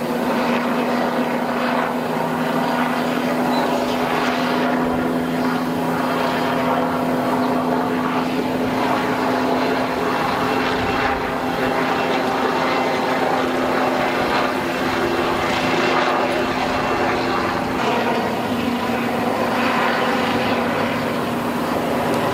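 Police helicopter circling overhead, its engine and rotor giving a steady drone that carries on without a break.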